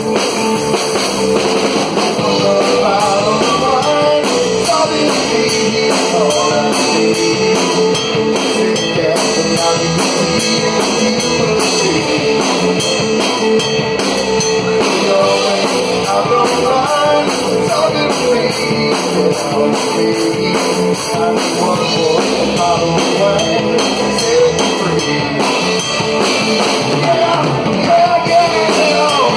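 A live rock band playing an instrumental passage: electric guitar over a drum kit heard up close, with cymbal and drum hits throughout.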